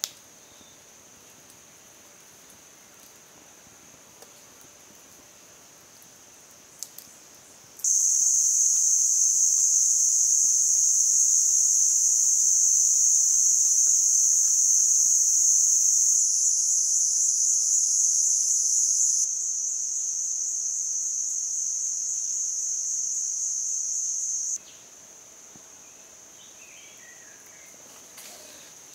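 Cicadas droning in a steady, high-pitched chorus. It starts loud suddenly about a quarter of the way in, eases down in steps, and drops back to a faint background drone about three-quarters of the way through.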